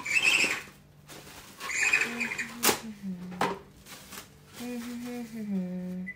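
Wet kitchen paper rubbing over a matsutake mushroom in two short scrubbing bursts, with a couple of light knocks. Then comes a simple tune of steady held notes that step down in pitch.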